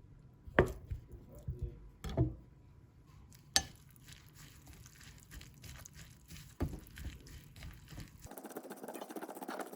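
Kitchen clatter while cooking: a few sharp knocks and clinks of utensils and dishes, spaced a second or more apart. Near the end the sound cuts abruptly to a different, hissier background with many small ticks.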